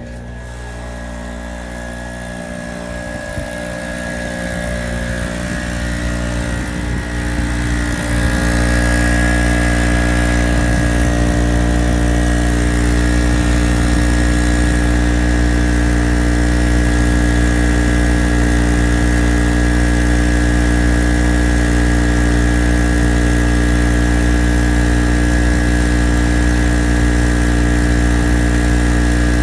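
Harbor Freight Storm Cat 63cc two-stroke generator running steadily at constant speed under a load of about 450 watts. It grows louder over the first eight seconds or so, then holds steady.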